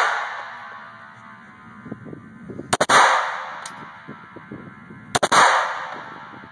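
Two shots from a 9mm Glock 19 Gen4 pistol fired with a deliberately limp wrist, about two and a half seconds apart. Each shot is followed by a long echoing ring-out.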